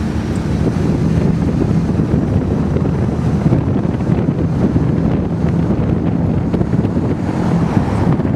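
Heavy wind buffeting on the microphone of a camera on a moving vehicle, with a low, steady engine rumble underneath.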